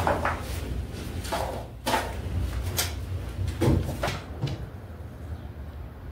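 Plywood boat hull being handled: a series of short wooden scrapes and knocks as it is tipped and shifted on the floor, over a steady low hum.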